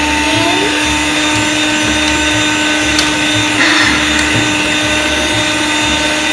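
Electric hand mixer running steadily, its beaters whirring in a stainless steel bowl as it beats melted butter with vanilla extract.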